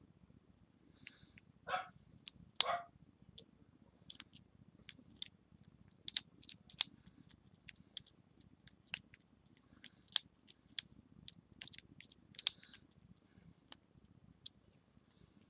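Irregular small metallic clicks and ticks of a lock pick and tension tool working the pins of a small brass 4-pin lock during single-pin picking. Two louder, longer scraping sounds come about two seconds in.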